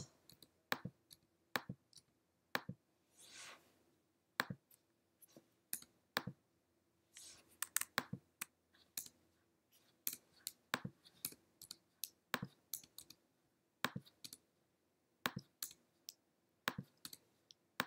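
Computer mouse clicking: many faint, sharp single clicks scattered irregularly, some in quick pairs, as on-screen items are selected and deleted.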